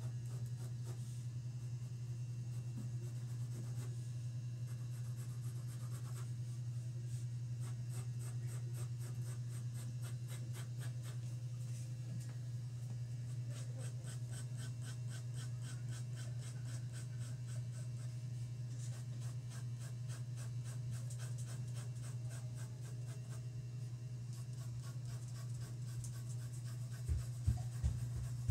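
Pencil scratching on paper in quick, repeated hatching strokes, over a steady low hum. A few low thumps near the end.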